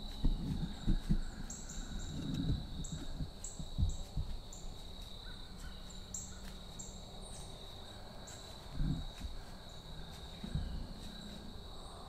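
Deer stepping through dry fallen leaves, irregular rustling footfalls, over a steady high chirping.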